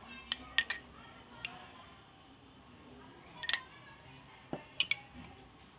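Metal spoon clinking against cups as coffee water is spooned onto crushed chocolate bread. There are a few quick clinks in the first second, a short cluster about three and a half seconds in, and three more near the end.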